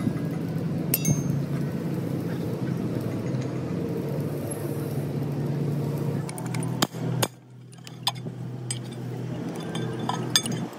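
A machine running with a steady hum, then an abrupt drop to a quieter background with scattered light metallic clinks, like tools or metal parts being handled.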